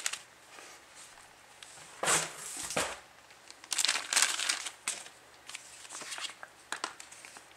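Thin clear plastic bag crinkling in two short bursts as a paper booklet is worked out of it, with lighter rustles and a few small clicks between.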